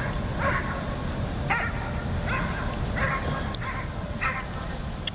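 A dog barking in short, high barks, about six of them under a second apart, over a steady low rumble.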